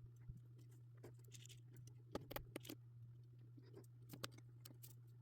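Faint, scattered clicks and taps of jumper wires being handled and pushed into a solderless breadboard, over a low steady hum.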